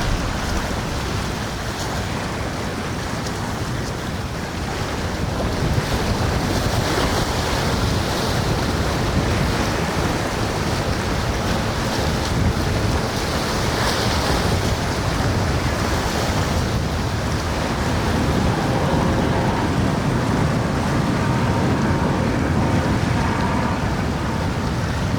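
Steady rush of surf and wind noise on the microphone, with a boat's engine running faintly beneath it and growing a little louder after the first few seconds.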